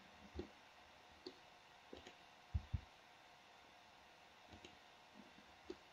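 Faint, scattered clicks of a computer mouse, with a quick pair of clicks about two and a half seconds in.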